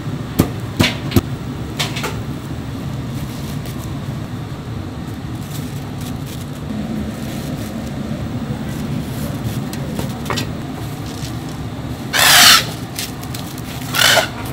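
A few sharp knife strokes on a cutting board early on, over the steady hum of a busy market. Two loud, short noises come near the end.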